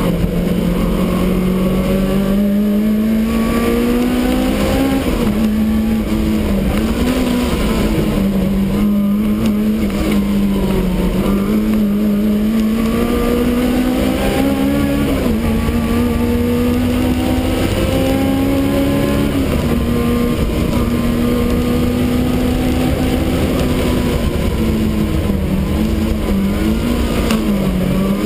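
Supercharged BMW E30 race car's engine heard from inside its stripped cabin while lapping a circuit, running loud and steady with its note climbing slowly under power and dipping in pitch several times.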